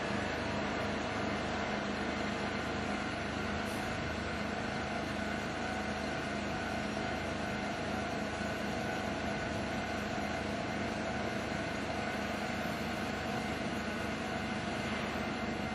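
A steady mechanical hum with several held tones over an even rushing noise, unchanging throughout, with no rhythm or clatter.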